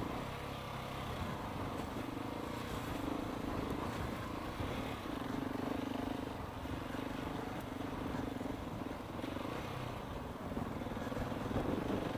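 KTM 690 single-cylinder dirt bike engine running while ridden off-road, its note swelling and easing with the throttle, under a steady rush of wind noise.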